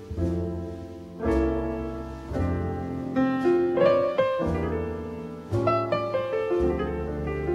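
Instrumental piano music: chords and melody notes struck one after another.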